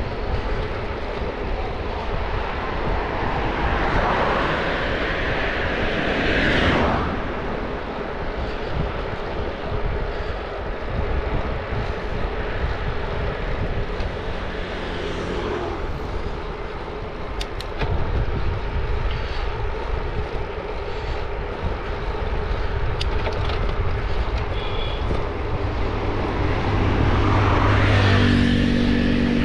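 Steady wind rumble on the microphone of a bicycle moving at about 25 km/h. A motor vehicle passes about five seconds in, and another near the end with a humming engine.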